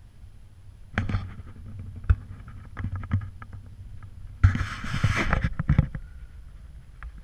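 Camera handling noise: low rumbles and scattered knocks from about a second in, with a louder rubbing rustle about four and a half seconds in.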